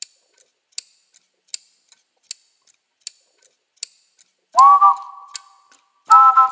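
Outro music: a clock-like ticking, about two and a half ticks a second, then from about four and a half seconds in two short held chords of three clear notes, each sliding up slightly as it starts.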